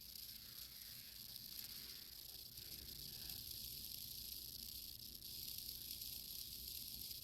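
Faint steady high-pitched hiss with no distinct clicks or knocks: room tone.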